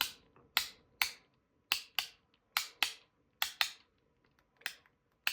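MOT Gourd haptic fidget clicking as it is worked by hand: about a dozen sharp, separate clicks at an uneven rhythm, some in quick pairs, as its magnet-held PEEK parts snap and jump between positions.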